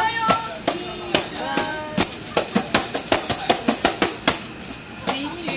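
Song with a tambourine keeping a quick, steady beat of jingling strokes, and a voice singing at moments.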